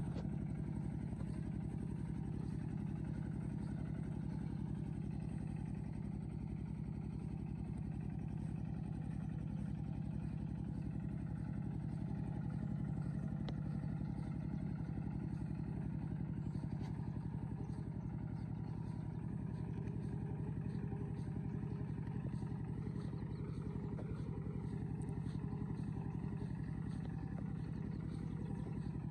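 A motor vehicle's engine running steadily at a constant speed, a continuous low drone with an even pulsing.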